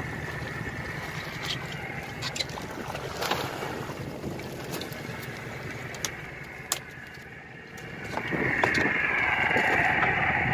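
Fishing boat's engine running steadily under wind and water noise, with a few sharp knocks on the hull. About eight seconds in, a louder hiss rises and holds.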